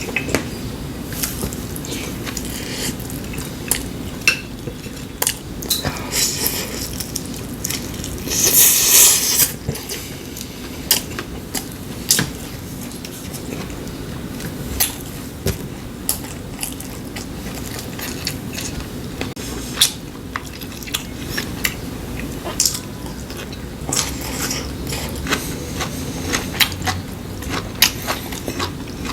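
Eating sounds: cutlery clicking and scraping against bowls and dishes, with chewing, in many short separate clicks. A louder hissing noise lasts about a second, around nine seconds in.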